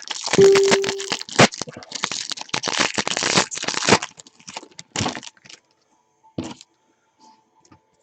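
Foil wrapper of a trading-card pack being torn open and crinkled: a dense run of crackling for about four seconds, then a few scattered short rustles. A short steady tone sounds near the start.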